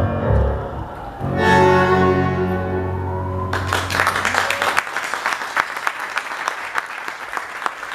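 Tango orchestra of bandoneons, violins, double bass and piano ending a piece on one long held chord. Audience applause breaks out about three and a half seconds in and carries on to the end.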